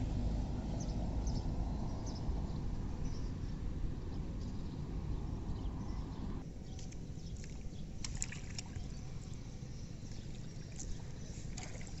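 Outdoor wind noise rumbling on the microphone, with a few faint high ticks or chirps scattered through it. It eases a little just past the halfway point.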